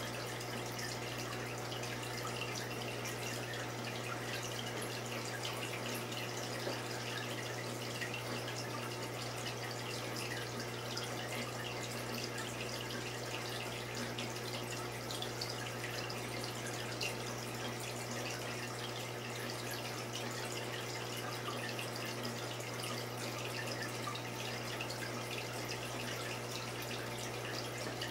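Saltwater aquarium water trickling and dripping steadily over a constant low hum.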